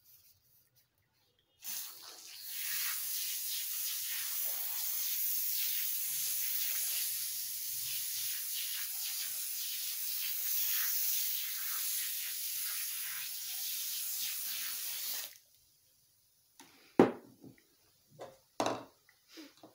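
Aerosol foam cleaner spraying in one long continuous hiss of about thirteen seconds, starting about two seconds in and cutting off suddenly. A few sharp clicks and knocks follow near the end.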